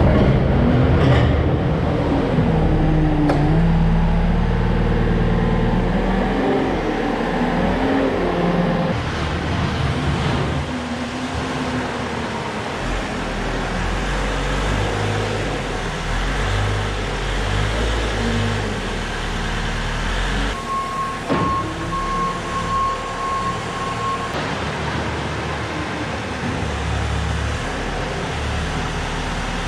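John Deere 6155R tractor engine running under way, its pitch rising and falling in the first few seconds and then holding steady. About two-thirds of the way in, a high beeping tone sounds for about four seconds.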